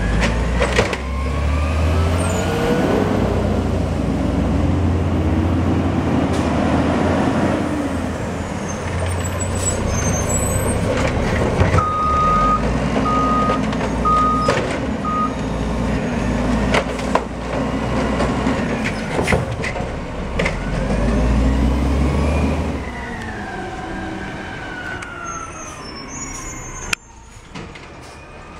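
Automated side-loader garbage truck working: the engine rumbles and revs up and down to drive the hydraulic arm as it grabs, lifts and dumps a wheeled cart, with knocks and clanks of cart and arm. Four short beeps sound about halfway through.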